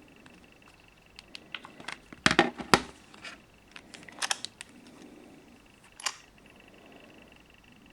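Clicks and knocks of a phone being handled, the two loudest a little over two seconds in, another cluster about four seconds in and a last one about six seconds in, over a faint steady high tone.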